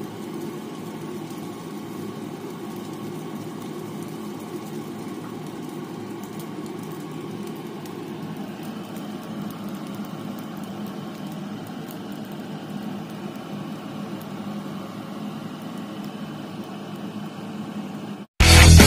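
Steady low hum and hiss of a pan of fried rice cooking on the stove. Near the end it cuts off and loud music starts.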